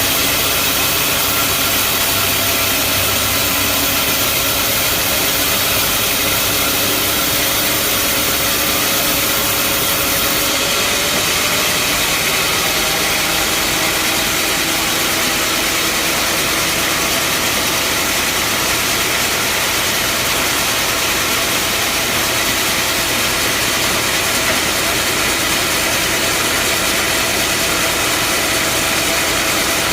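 Band sawmill running: a steady, loud mechanical drone with a slight upward shift in pitch about ten seconds in.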